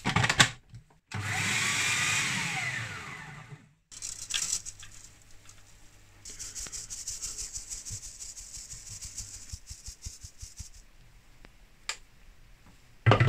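Kenwood food processor's motor and blade grinding porridge oats, starting abruptly about a second in, its pitch falling as it spins down and fades. Then ground oats are shaken through a metal mesh sieve: a steady, fine, high rustling hiss for several seconds, with a few sharp clicks near the end.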